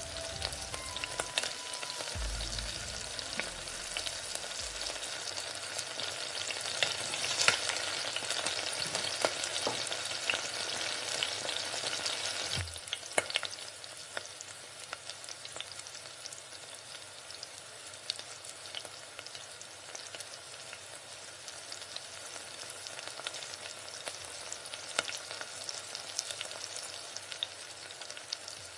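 Small whole potatoes frying in hot oil in a pan: a steady sizzle full of fine crackles, with scattered clicks and scrapes as they are stirred. About halfway through the sizzle drops a little quieter.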